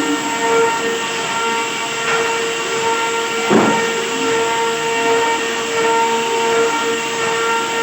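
Wood-cutting spindle, likely a CNC router, running at a steady high speed: a constant whine over the hiss of the cut, with a brief louder sweep about three and a half seconds in.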